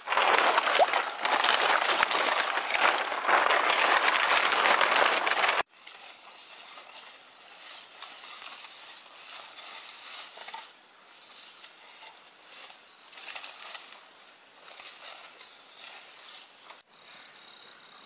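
Dry straw and plastic sheeting rustling and crackling as cats move about in a straw bed. About five and a half seconds in it cuts off suddenly to much fainter rustling, and near the end a steady high tone comes in.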